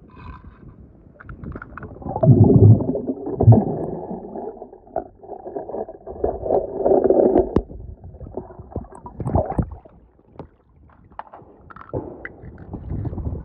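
Pool water splashing and gurgling around a microphone dipped underwater, in three surges, with light clicks of die-cast toy cars set on wet stone tile between them.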